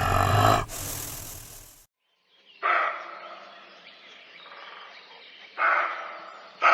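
A wild forest animal calling: three short, loud calls a few seconds apart, each trailing off, after the previous sound stops sharply just before two seconds in.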